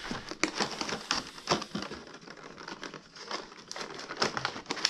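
Fingers picking and prying at a cardboard advent-calendar compartment: irregular clicks, taps and scrapes of card, coming quicker near the end.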